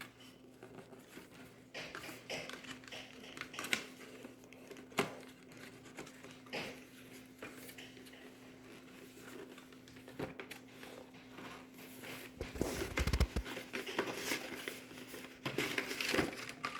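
Gift packaging being unpacked by hand: paper crinkling and rustling with scattered small knocks and handling noises, busier near the end, and a low thud about twelve seconds in. A faint steady hum runs underneath.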